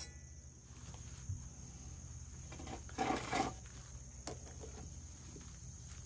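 Insects chirring steadily in the background, with a sharp clink at the start and a brief louder handling noise about three seconds in as coffee grounds are spooned into a stainless steel pour-over filter.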